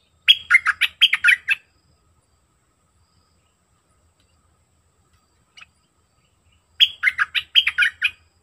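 Bulbul singing two short bursts of quick chirping notes, one at the start and one about seven seconds in, with a single faint note shortly before the second.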